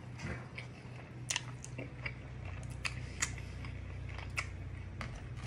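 A man chewing a mouthful of rice and curry, with a few short, sharp clicks as a metal fork taps the plastic takeaway tray. A low steady hum runs underneath.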